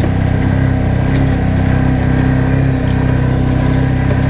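ATV engine running steadily at a low, even speed as the machine crawls along a trail.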